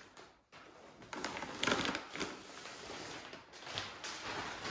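Packaging rustling and crinkling in irregular handling noises as the foam fuselage of a large RC warbird is unpacked.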